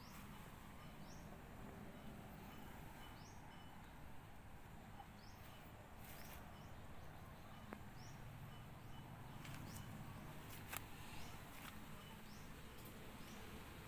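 Quiet outdoor ambience: a faint high chirp repeats about once a second over a soft steady hiss, with a few light clicks in the second half.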